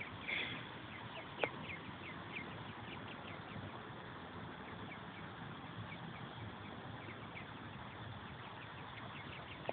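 Ducklings peeping: a steady stream of short, high chirps, several a second, from a brood huddled by their mother. A single sharp tap about a second and a half in.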